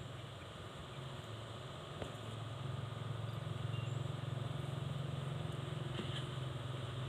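An engine running steadily with a low hum, growing a little louder about two and a half seconds in.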